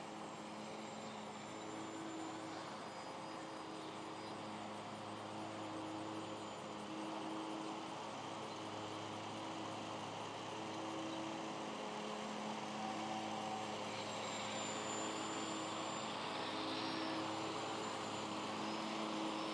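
Small electric motor and propeller of a scratch-built foam RC plane droning overhead, a steady hum that swells and fades a little as the plane passes and grows slowly louder near the end.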